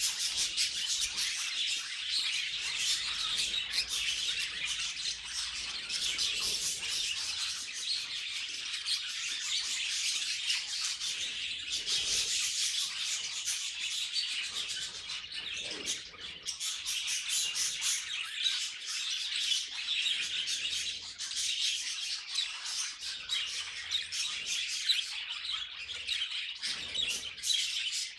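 Budgerigar chatter: a continuous stream of rapid chirps, warbles and squawks with no real breaks.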